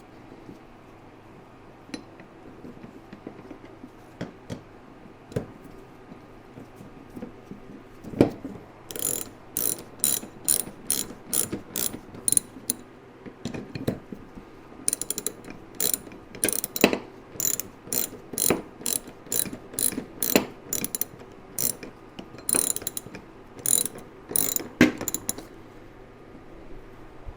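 Hand ratchet wrench clicking as it runs new hood hinge bolts down, in two runs of quick even clicks about two to three a second with a short pause between. Before that, a few scattered light clicks of handling.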